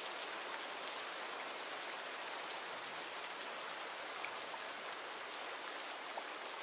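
Steady rain falling in a forest, an even hiss with scattered drops pattering.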